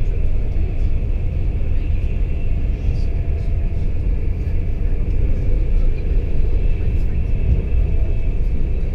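Steady low rumble of a Mark 4 passenger coach running at speed behind a Class 91 electric locomotive, wheels on the rails heard from inside the saloon, with a faint high whine over it.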